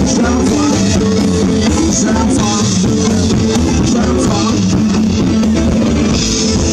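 Live rock band playing through a PA system: guitar and drum kit, loud and steady.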